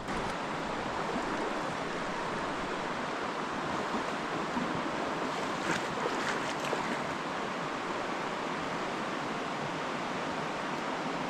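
Mountain stream water rushing over riffles and boulders, a steady wash of running water, with a few faint clicks about six seconds in.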